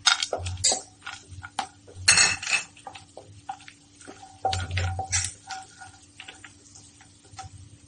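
Wooden spatula stirring cashew nuts in melted butter in a non-stick pan: irregular knocks, clicks and scrapes of the spatula and nuts against the pan.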